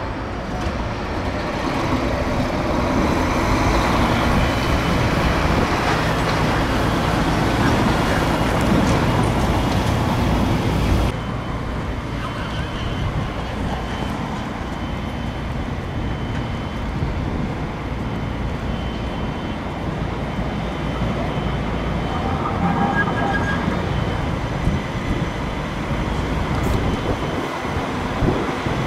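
Stadler Citylink tram-trains: one running past along the track, its running noise building over the first seconds, then a steadier, quieter stretch as another tram-train pulls slowly into the platform beside a standing unit.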